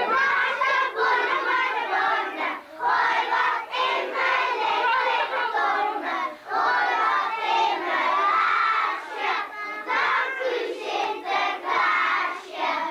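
A roomful of young children's voices raised together, loud, with a couple of short breaks.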